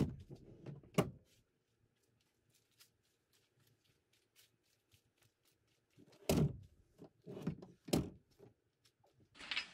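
Front seats of a car being slid back on their floor tracks: a sharp click or two from one seat's rail latch, a quiet stretch, then a cluster of clunks and thunks as the other seat is pushed back and locks.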